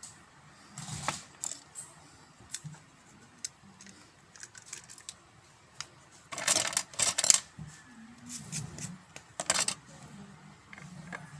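Small hard parts of a flashlight being handled and fitted together: scattered clicks and light knocks, with a quick run of clattering knocks about six and a half seconds in and another sharp clack near nine and a half seconds.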